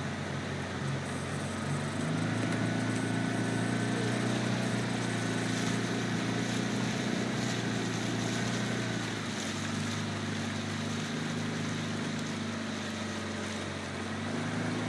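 Motor launch's engine running steadily, heard from on board over water and wind noise; the engine note picks up about two seconds in and eases off around nine seconds.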